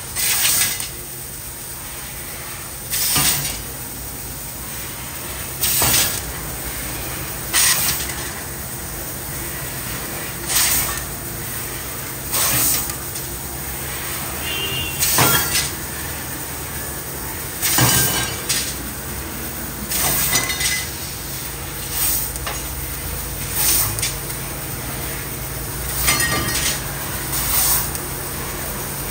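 CNC laser cutting machine cutting a patterned steel door panel: short loud hissing bursts recur about every two to three seconds over a steady low machine hum.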